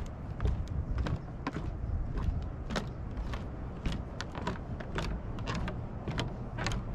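Footsteps on a wooden boardwalk at a steady walking pace, about two steps a second, over a low rumble.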